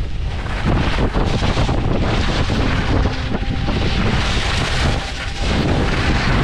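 Wind buffeting the microphone: a loud, steady rush with a heavy low rumble.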